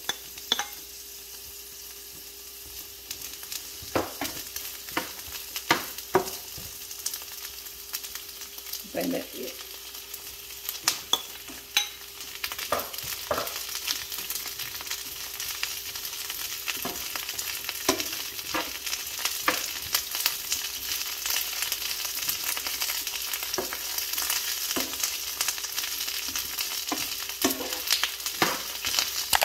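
Carrots, onion and snow peas sizzling in oil in a nonstick frying pan while a wooden spatula stirs them, knocking and scraping against the pan. The sizzle grows louder through the second half.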